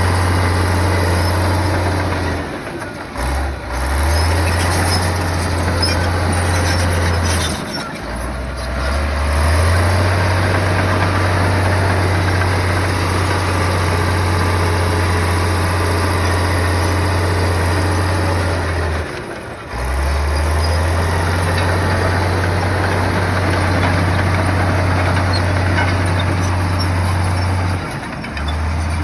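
Diesel engine of heavy earthmoving machinery running under load as a steady low drone with broad mechanical noise. It dips briefly and drops in pitch four times before picking back up.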